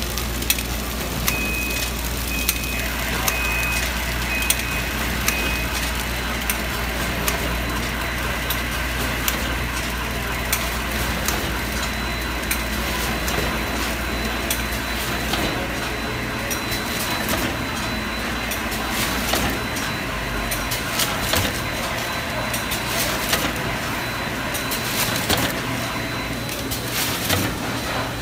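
Automatic bread packing machinery running: a steady mechanical noise with frequent clicks from the conveyors and wrapping mechanism. About a second in comes a row of five short beeps a second apart. A low hum drops away about two-thirds through, and a thin steady high whine is heard in the second half.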